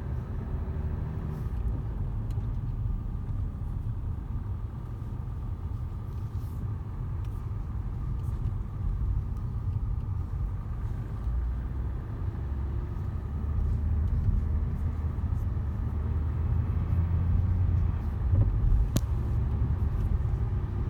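Jaguar XJ running, heard from inside the cabin: a steady low rumble, with a faint squeak from under the dashboard that comes and goes. One sharp click sounds near the end.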